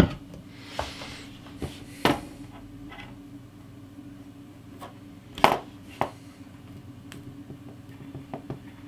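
Scattered small clicks and taps from handling a bare GTX 780 circuit board on a desk while a cotton swab wet with alcohol wipes old thermal paste off the GPU die, the loudest knock about five and a half seconds in. A steady low hum runs underneath.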